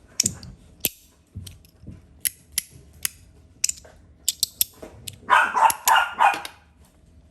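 Compoform magnetic fidget slider clicking as its pieces are slid and snapped together, a sharp click every half second or so. About five seconds in, a dog barks several times in quick succession, louder than the clicks.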